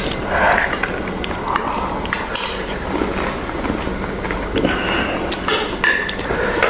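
Close-miked eating of pani puri: a metal spoon clinking against glass bowls and cracking open puri shells, with scattered clicks and chewing sounds.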